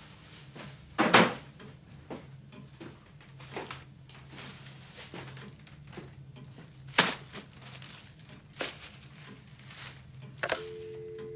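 Handling sounds: a sharp knock about a second in, scattered knocks and paper and plastic-bag rustles as things are set down on a table. Near the end a telephone handset is lifted with a click and a steady dial tone starts.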